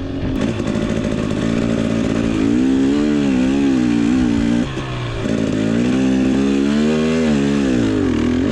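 KTM 250 XC-W two-stroke single-cylinder dirt bike engine under way, its revs rising and falling with the throttle; it drops back briefly about four and a half seconds in, then picks up again.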